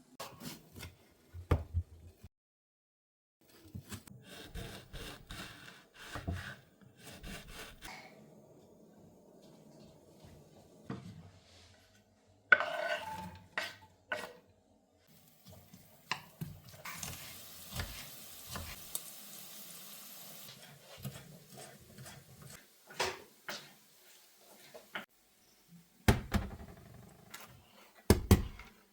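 Household kitchen clatter: dishes and containers knocked and set down, with rubbing and wiping, and a steady hiss for several seconds midway.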